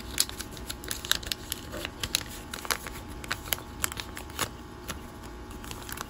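A sheet of origami paper being handled and creased by hand, making irregular crisp crackles and rustles. The clicks thin out near the end.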